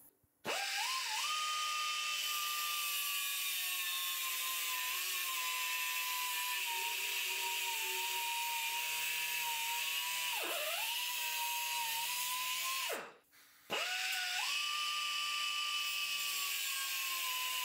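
Chicago Pneumatic CP9116 air cut-off tool spinning up and cutting through a large nut, a high whine with a hiss of grinding over it, its pitch sagging slowly as the disc works. The pitch dips briefly about ten seconds in, and the tool stops about thirteen seconds in and starts again under a second later.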